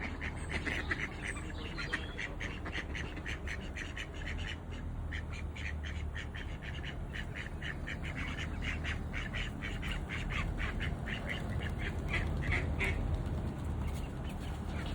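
Ducks quacking in a rapid run of short quacks, a few each second, getting busier in the second half.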